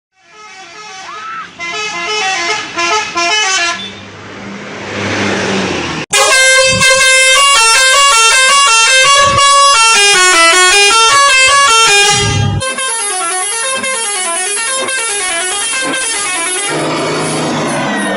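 Indonesian bus 'telolet' multi-tone horns playing quick stepping tunes, several passages one after another with an abrupt change about six seconds in. The loudest, densest passage runs to about twelve seconds, followed by a warbling, gliding melody. A rushing noise swells between the horn passages.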